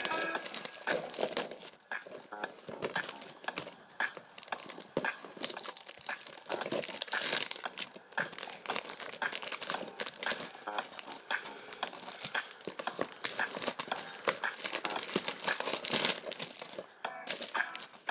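Clear plastic shrink-wrap being torn and crinkled off a DVD case, a dense run of irregular crackles.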